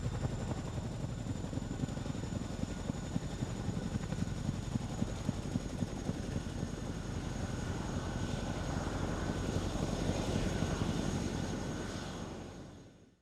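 CH-47 Chinook tandem-rotor helicopter running, a dense low rumble with rapid rotor chop and a steady high whine, fading out near the end.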